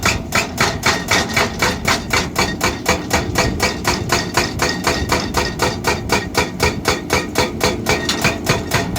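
Rapid, evenly spaced hammering blows, about four to five a second, keeping a steady, unbroken rhythm.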